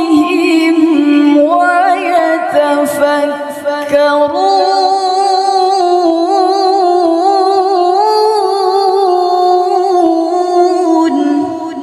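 A woman's voice reciting the Qur'an in melodic tilawah style, drawing out one long ornamented melisma. The held notes waver and step up and down in pitch several times, and the voice fades out about eleven seconds in.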